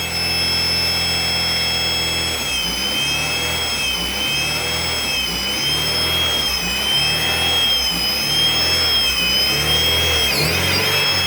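Newly installed used Honda B20B four-cylinder engine running just after first start-up, with a loud, steady high-pitched screech over the engine's hum; the screech's pitch dips briefly near the end. From about two seconds in, the engine note pulses unevenly about every three-quarters of a second.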